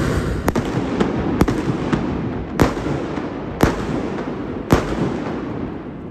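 Fireworks bursting: a series of sharp bangs, the last three loudest and about a second apart, over a steady background noise that fades near the end.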